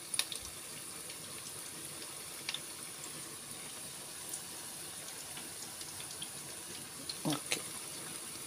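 Puff puff batter deep-frying in a basket deep fryer: a steady sizzle of hot oil with scattered small pops and crackles.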